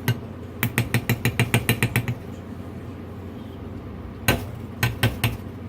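Rapid run of sharp taps, about seven a second, then a few louder knocks near the end: a kitchen utensil knocking against a pot while butter goes into the cheese sauce.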